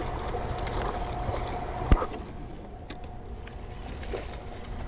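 Steady low rush of spillway water and wind around a kayak, with a thin steady tone that fades near the end and a single sharp knock about two seconds in.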